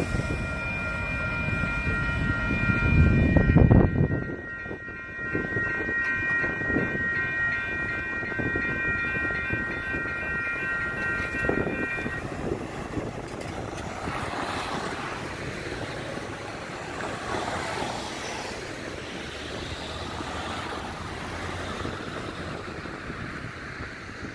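Grade-crossing warning bells ringing steadily while a Union Pacific freight train rumbles past on the main line, loudest about three to four seconds in and then fading as it draws away. The bells stop about twelve seconds in as the gates lift, leaving wind and the faint, receding train.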